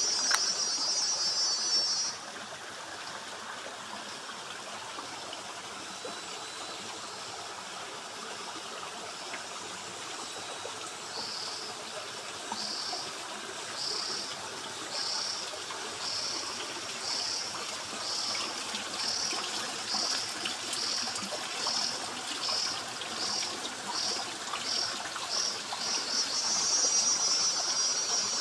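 A forest stream trickling steadily, with a cicada singing over it. A loud buzz cuts off about two seconds in. From about eleven seconds the cicada gives pulsed calls that come faster and faster until they merge into a continuous buzz near the end.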